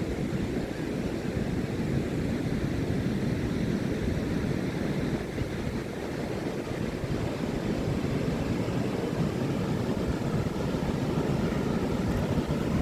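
Ocean surf on a beach, a steady low rushing with no single wave crash standing out.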